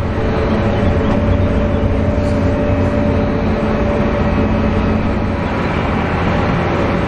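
Bombardier CRJ900 regional jet's rear-mounted turbofans at taxi idle: a steady whine over a low rumble.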